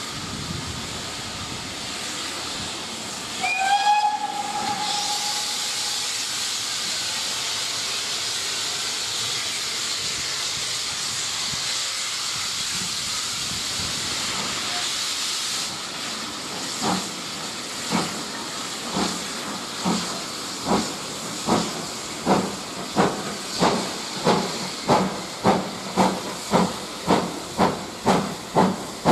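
A steam locomotive hisses steam, then sounds one short whistle. From just past halfway it pulls away with chuffing exhaust beats, about one a second at first and quickening to about two a second.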